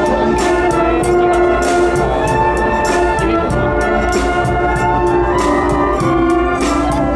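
A school brass band playing live: a brass melody in held chords over a steady drum beat with cymbal strikes.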